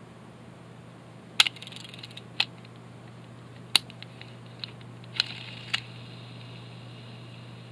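Small metal parts of a fishing reel being handled, about six sharp clicks and clinks against a hard surface, two of them with a brief metallic jingle, over a steady low hum.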